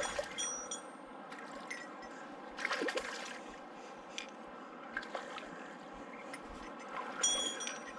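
River water running, with a splash about three seconds in and short bursts of high ringing clicks near the start and again near the end.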